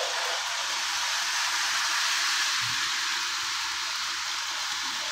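Lionel remote-control steam freight train set running around its Fastrack oval, giving a steady, even hiss.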